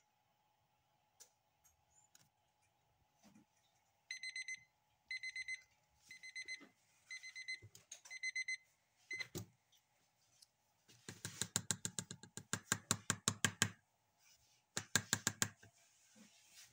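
DT-1045 electronic countdown timer alarm going off as its countdown reaches zero: five short bursts of rapid high beeps, about one a second. A few seconds later comes a run of rapid sharp clattering, and a shorter one near the end.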